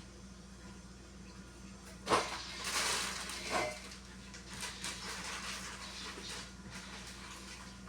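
Household items being handled in a kitchen: a sharp knock about two seconds in, a second or so of rubbing or scraping noise with another clatter, then scattered light clicks and taps.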